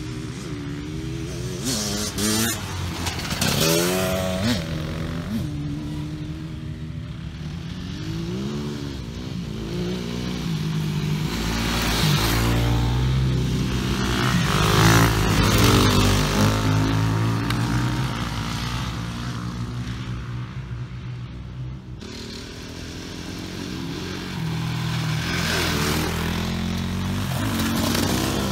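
Several enduro motorcycles riding past one after another on a dirt track, their engines revving up and falling back as they accelerate and shift. The loudest pass comes about halfway through.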